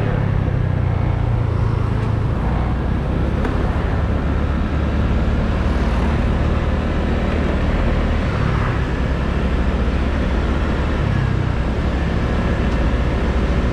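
Motor scooter riding at a steady pace on a paved road: engine running along with road and wind noise heard from the rider's position, a steady low rumble throughout.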